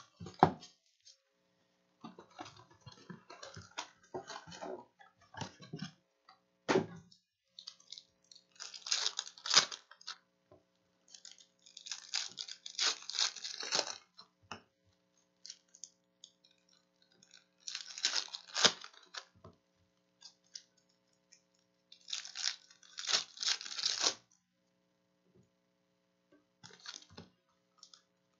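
Panini Contenders basketball card pack wrappers crinkling and tearing as the packs are ripped open by hand, in four short bursts a few seconds apart, with quieter rustling of cards and wrappers between.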